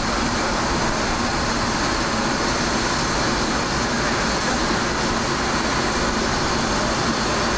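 Steady rushing jet-turbine noise from a parked Boeing 787 Dreamliner, with a thin high whine held over it.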